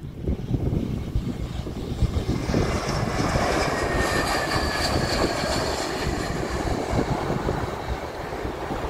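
Airbus A320-200 jet airliner on short final and flaring to land, its engines giving a steady rumble with a high whine that is strongest as it passes close.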